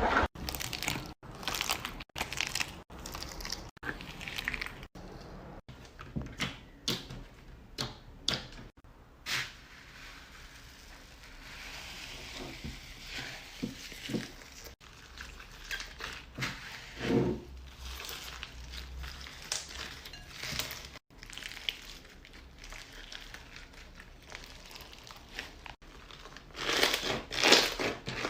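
Slime being squished, stretched and pressed, making crackling, crinkly sounds, in a run of short clips cut one after another.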